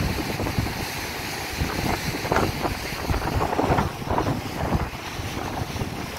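Wind buffeting the microphone in a steady rumble, with several brief, uneven louder bursts in the middle.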